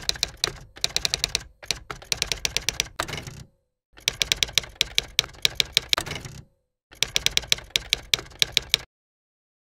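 Typewriter-typing sound effect: rapid key clacks in three runs with short pauses between them, stopping about nine seconds in.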